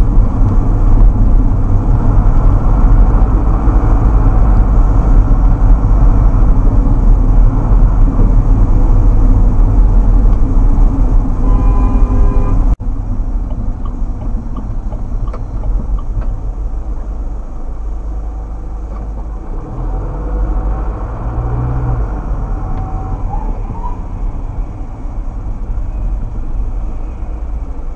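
Steady low rumble of road and engine noise from inside a moving car, dropping suddenly to a lower level about thirteen seconds in.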